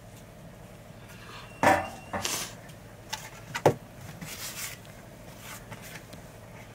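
A handful of knocks and clatters from a metal bowl and a metal lid being handled at a plastic storage drum, the loudest about one and a half seconds in with a brief metallic ring, and a sharp knock a couple of seconds later.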